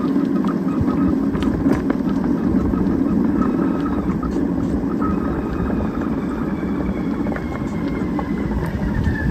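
Steady road noise of a bicycle being ridden along a paved street: tyre rumble and wind on the microphone, with small clicks and rattles. A faint whine slowly falls in pitch over the last few seconds.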